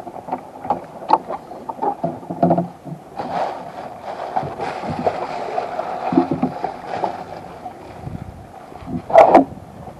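Canoe on the water: a paddle swishing through the water, with repeated light knocks of wood against the hull and a louder knock or splash about nine seconds in.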